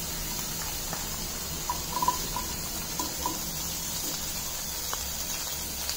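Butter and chilli paste sizzling in a nonstick pan as boiled potato cubes are added: a steady low hiss, with a few light clicks and taps from the bowl and spatula against the pan.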